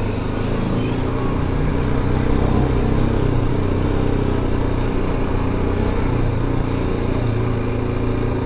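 Motorcycle engine running steadily while the bike is ridden, a constant low engine note with no revving.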